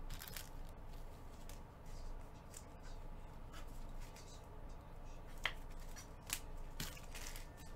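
Trading cards being handled and set down, making faint rustles and scattered soft clicks, with two sharper clicks about five and a half and six and a half seconds in.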